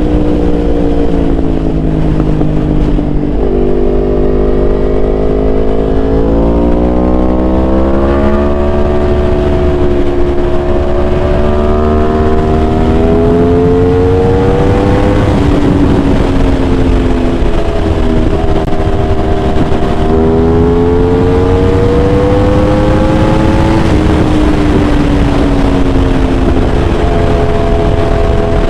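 Yamaha R1 inline-four motorcycle engine under way, its pitch climbing and falling several times as it revs up, shifts and eases off, with a constant low wind rumble on the microphone.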